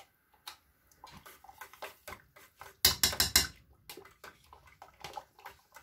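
Kitchen utensil clicks and knocks: a spoon scraping sour cream out of a nearly empty plastic tub and a knife on a wooden cutting board, with a brief burst of rapid, louder knocks about three seconds in.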